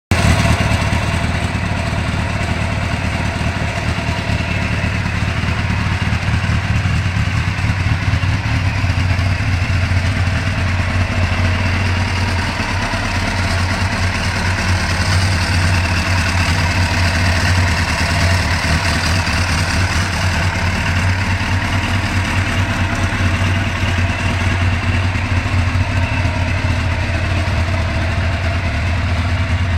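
Kawasaki ZZR1100's inline-four engine idling steadily through an aftermarket Remus exhaust.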